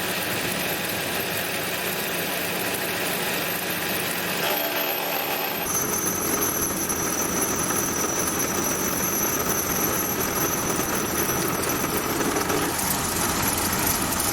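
Home-built Gingery milling machine running, its motor and toothed-belt drive turning the cutter through a final finishing cut in an aluminium jaw: a steady mechanical whir. A thin high whine joins about six seconds in.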